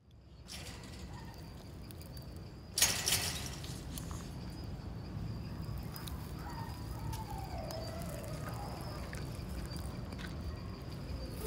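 Outdoor background noise: a low steady rumble and a thin steady high whine, broken by a brief loud burst of noise about three seconds in.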